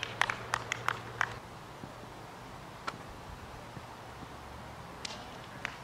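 Scattered hand claps from a few spectators, dying away after about a second, then quiet outdoor background with a couple of faint knocks near the end.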